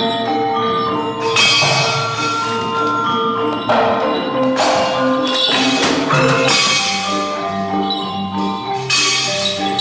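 Javanese gamelan accompaniment: bronze metallophones and gongs sounding sustained, ringing notes. Sharp metallic crashes come roughly every two and a half seconds, four in all.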